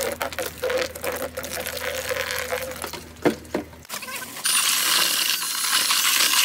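Dry concrete mix poured from a paper sack into a bucket, with two knocks a little past halfway. About four and a half seconds in, a DeWalt cordless drill with a paddle mixer starts and runs steadily with a high whine, stirring the concrete in the bucket.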